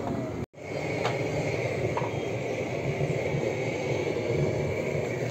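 Steady outdoor noise of wind rumbling on the microphone. It cuts out briefly about half a second in, and a couple of faint taps follow.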